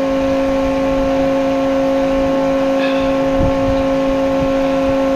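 12-volt electric diesel transfer pump running steadily, pumping fuel into the excavator's tank with an even, high-pitched hum.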